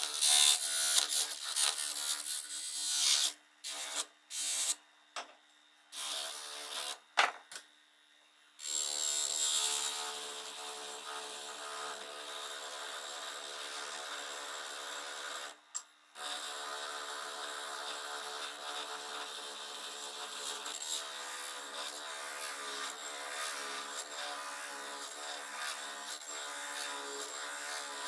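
Workshop tool work on metal parts. It starts as a run of short, choppy bursts, then from about nine seconds turns into a steady powered tool sound, like a grinder or polishing wheel running against the workpiece, broken once by a brief cut.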